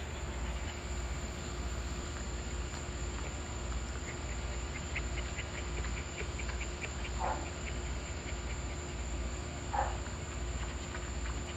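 Insect chorus in a steady, high-pitched drone, with a quick run of chirps at about five a second in the middle and two short squeaks a little later.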